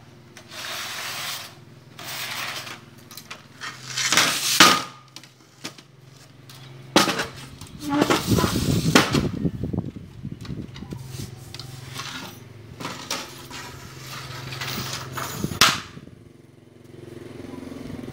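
Aluminium channel frame and plywood panel being handled and fitted together, scraping and rattling on a tiled floor in short bursts, with a few sharp metallic knocks. The loudest knock comes about four seconds in, and a longer rough scraping stretch follows around the middle.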